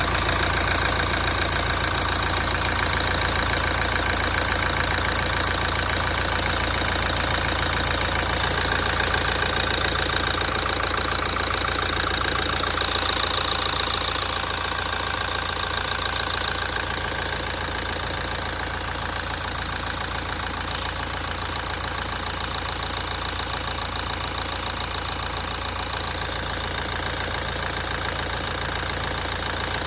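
A 2017 Toyota's engine idling steadily, a little quieter from about halfway through. It is making a noise that the owner noticed after a major service.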